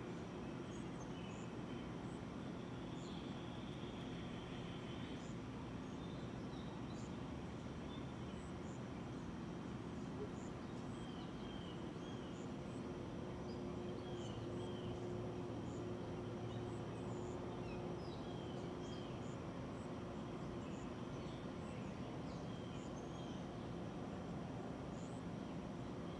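Outdoor ambience of birds chirping here and there, short high calls scattered throughout, over a steady low hum.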